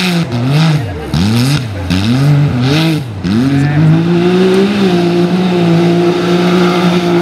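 Side-by-side off-road buggy's engine revving up and down in quick repeated surges as it drives over dirt mounds, then held at a steady high rev from about halfway through.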